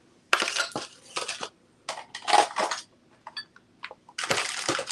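Rustling and clinking as jewelry pieces are handled and set down, in three bursts of about a second each.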